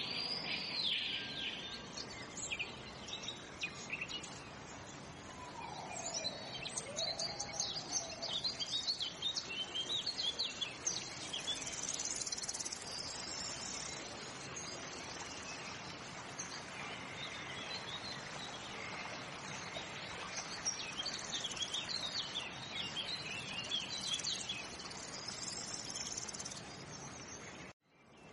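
Dense chorus of small birds chirping and calling over a steady hiss. The birdsong cuts out abruptly near the end and starts again.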